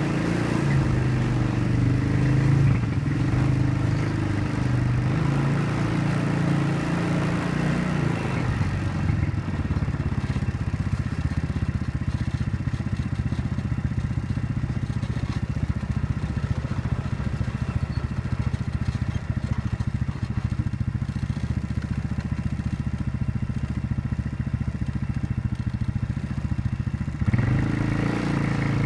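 ATV engine running as the quad rides along, its pitch rising and falling with the throttle for the first several seconds. It settles to a lower, rougher running from about nine seconds in, then picks up again near the end.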